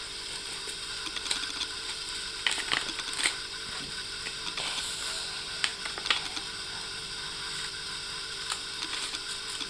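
Small children's scissors snipping strips of paper: several short, scattered snips over a steady background hiss.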